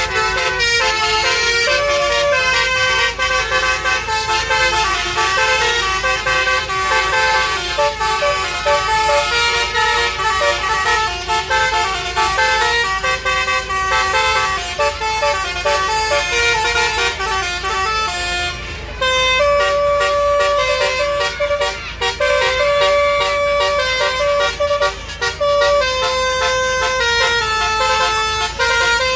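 A coach bus's roof-mounted basuri horn, a set of several air-horn trumpets, playing a tune note after note. There is a brief pause about two-thirds of the way through, and then the tune goes on.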